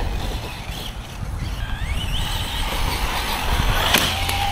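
Electric motor of a Team Magic E5HX RC truck whining as it speeds up, its pitch rising then holding steady, over a low rumble of wind noise. A sharp knock comes about four seconds in.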